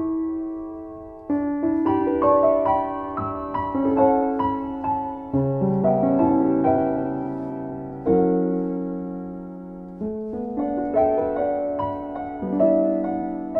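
Solo piano playing a slow, gentle piece: chords and melody notes struck and left to ring and fade before the next ones.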